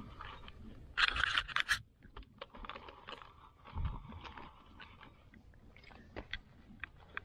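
Scraping, rustling and light clicking from a spinning rod and reel being handled while a hooked fish is reeled in. A brief, louder rustling scrape comes about a second in and a dull thump about four seconds in.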